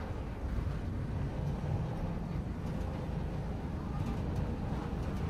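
Steady low rumble of a Chao Phraya river tourist boat's engine running.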